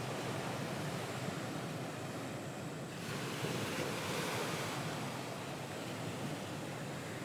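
Ocean waves washing on a shore, a steady wash that swells a little about three seconds in and then eases.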